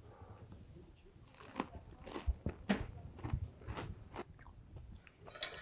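A person biting into and chewing a piece of toasted croque-monsieur, the crisp toasted bread crunching in a run of short crunches about two a second.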